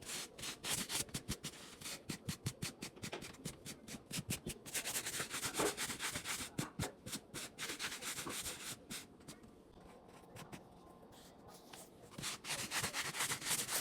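Pet hair removal glove rubbing over pants to brush off dog hair, in quick repeated strokes, quieter for a few seconds past the middle.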